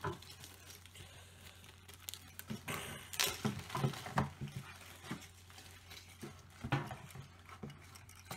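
Plastic packaging rustling and small fishing tackle being handled, with light clicks and taps, a louder crinkle about three seconds in, and a steady low hum underneath.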